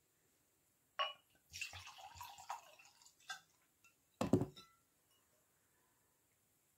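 A wine bottle clinks against a red wine glass, then red wine is poured into the glass with a splashing, gurgling run for about two seconds. A louder knock with a low thud follows about four seconds in.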